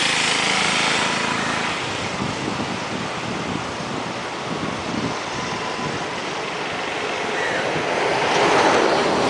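Whitewater river rushing: a steady noise of fast-flowing water that swells louder about eight seconds in.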